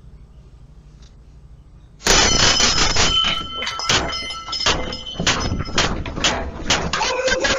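Sudden loud banging and crashing starting about two seconds in: many hard knocks in quick succession, with a high ringing squeal running through them.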